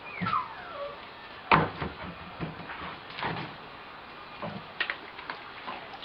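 A cupboard being worked by a wolfhound: a falling squeak at the start, a sharp knock about a second and a half in, then a few lighter knocks and clatters.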